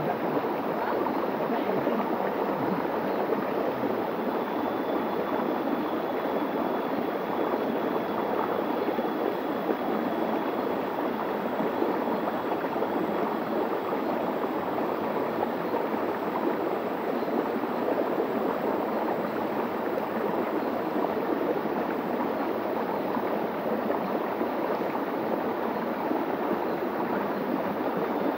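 Shallow stream running steadily over a rock bed, gurgling through small pools and cascades.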